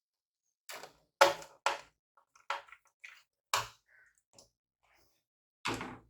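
A series of about seven short, sharp clicks and knocks from the plastic parts of a laptop and tools being handled and set down. The loudest comes about a second in.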